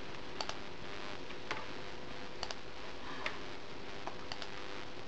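Computer mouse button clicking about seven times, some clicks in quick pairs, over steady background noise.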